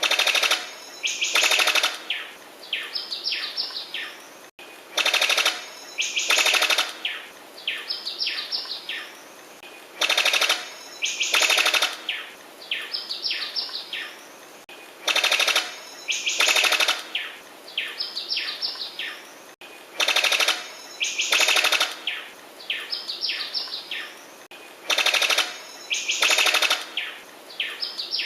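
Sicklebill bird-of-paradise calling: two loud, rapid rattling bursts followed by a short run of rising whistled notes, the same phrase repeating about every five seconds.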